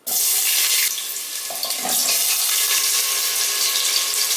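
Cut potato pieces dropped into hot oil in a pressure cooker, setting off a loud sizzle that starts suddenly and keeps on steadily, with a few light knocks of the pieces in the pan.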